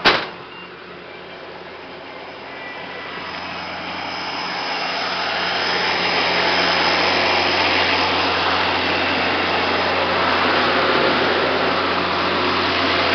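A straight-piped diesel tractor engine running under load, heard from inside the cab, growing louder over a few seconds and then holding steady. A sharp click comes right at the start.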